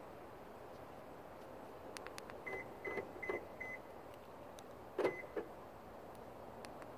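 A 2004–2009 Toyota Prius answering its key fob: four short, quick beeps from the car, mixed with dull clunks of the door locks working, then two more clunks a little later. The car is responding to the fob's new CR2032 battery.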